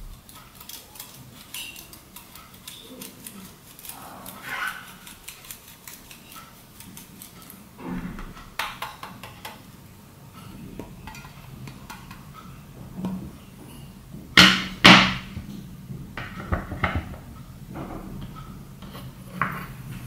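Hard cheese grated on a handheld metal grater: many quick, fine scraping strokes. Two loud, sharp knocks come a little past halfway, followed by a few lighter clicks.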